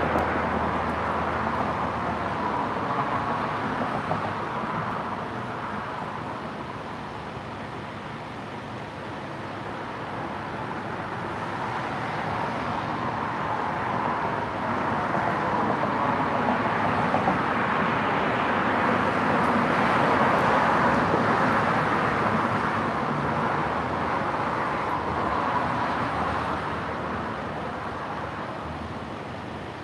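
Road traffic passing: the noise of cars swells and fades, loudest at the start and again about two-thirds of the way through.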